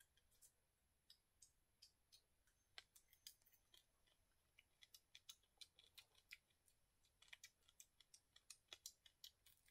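Near silence broken by faint, irregular clicks and ticks, several a second and thicker in the second half.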